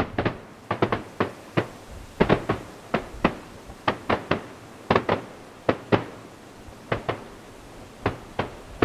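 Fireworks display: an irregular run of sharp bangs from bursting fireworks, about three a second, each with a short trailing echo.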